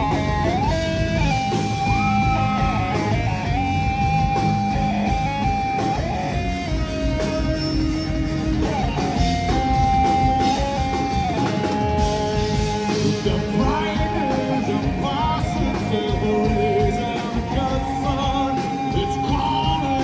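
Rock band playing live: Les Paul-style electric guitars, electric bass and a drum kit, with a lead guitar melody of held notes and slides over the top.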